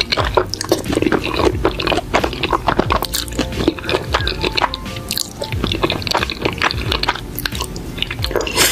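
Wet slurping and chewing of creamy spaghetti, many short squishy mouth clicks, over background music.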